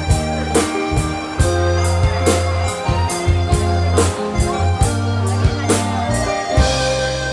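Instrumental pop music with a steady drum beat, a bass line and guitar.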